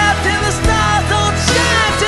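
Background music: a rock love song with guitar melody over bass and drums, between sung lines.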